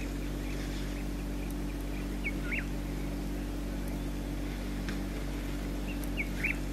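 Steady low droning hum with a few short bird chirps over it: a pair about two seconds in and another pair near the end.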